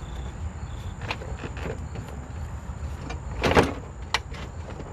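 Socket wrench on an extension working a headlight mounting bolt loose: a few scattered metallic clicks and knocks, the loudest about three and a half seconds in, over a steady low hum.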